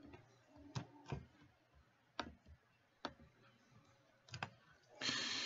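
A few faint, irregularly spaced clicks of a computer mouse and keyboard, two in quick succession near the end, followed by a brief soft hiss.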